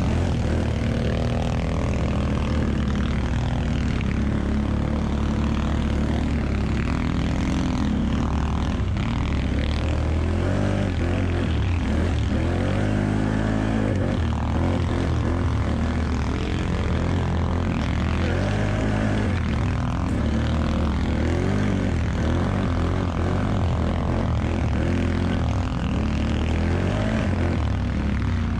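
ATV engine running under load while climbing through snow, its pitch rising and falling with the throttle.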